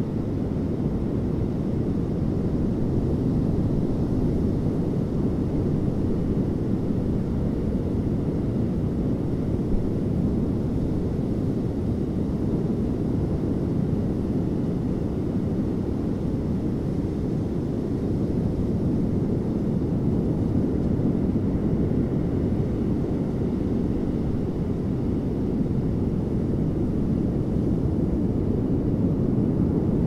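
Ocean surf breaking on a sandy beach: a steady low rumble of waves with little hiss above it.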